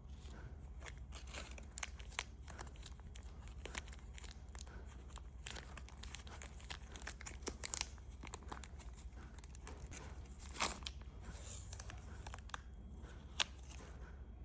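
Plastic candy wrappers being crinkled and torn open up close, with irregular sharp crackles, the loudest about ten and thirteen seconds in, over a faint steady low hum.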